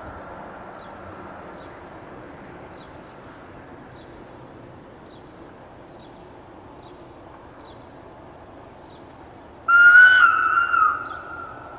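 Historic Appenzeller Bahnen railcar's horn sounding once near the end, a loud steady tone lasting about a second and a half that sags slightly in pitch as it cuts off.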